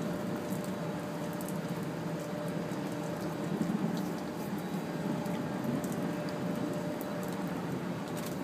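Steady rain falling, an even hiss with scattered faint drop ticks, over a faint steady hum.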